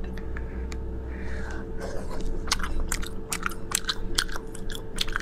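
Close-miked eating: a person chewing shellfish in spicy sauce. There are many sharp, wet clicks and smacks, growing dense about two seconds in, over a faint steady hum.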